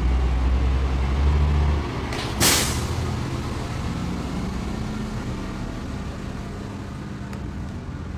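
A low, steady engine-like rumble, loudest for the first two seconds, with one short, loud hiss of air about two and a half seconds in.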